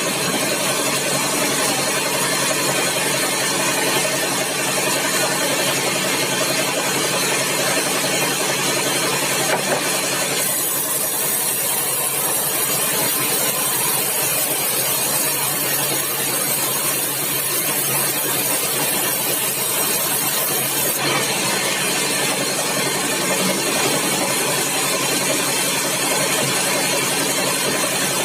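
Sawmill engine running steadily. A higher hiss comes in about ten seconds in and drops away about ten seconds later.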